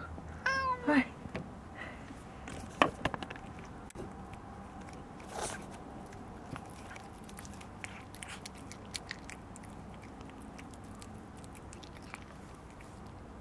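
A domestic cat gives one short meow about half a second in, then bites and chews its food with a run of small, sharp clicking crunches.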